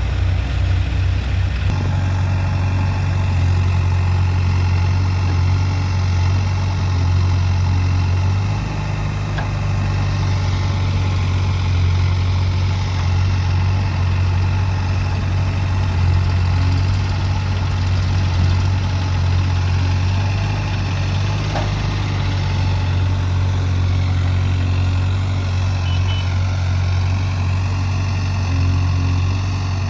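Heavy diesel engine running steadily at a low, even speed, its pitch shifting slightly a couple of times.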